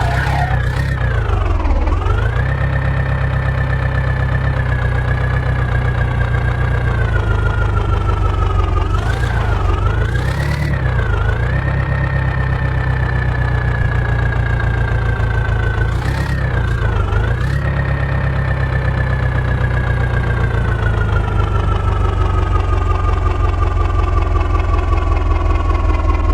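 Heavy diesel engine running steadily. Its pitch dips and recovers three times, then slowly falls near the end.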